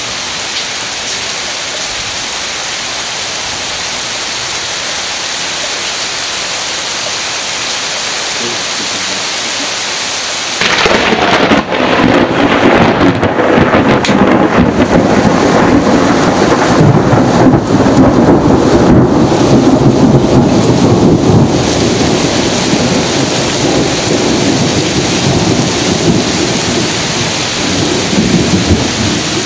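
Torrential rain hissing steadily, then about a third of the way in a sudden loud crack of thunder that rolls on as a long, wavering rumble, slowly fading toward the end.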